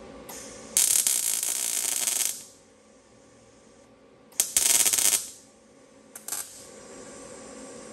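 MIG welder laying short welds on sheet-metal car body panels: an arc crackle in three bursts, the first about a second and a half long, the second under a second, and a brief blip near the end.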